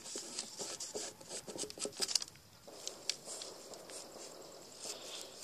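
Light, irregular clicks and taps of a paintbrush and a small rock being handled on a newspaper-covered table, busiest in the first two seconds. A faint steady background noise comes in about halfway.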